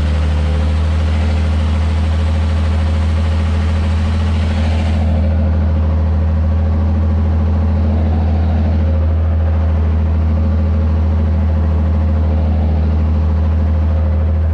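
Ursus 1214 tractor's diesel engine running steadily under load as it pulls a plough, heard from inside the cab.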